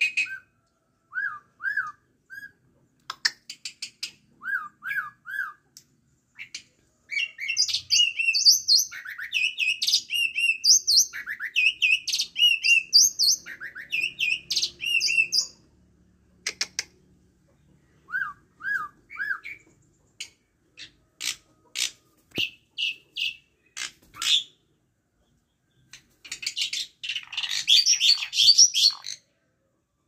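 Pied starling calling and singing close by. It starts with short repeated chirps, then about seven seconds in gives a loud run of varied whistles and chatter lasting several seconds. Scattered calls follow, then a harsher chattering burst near the end.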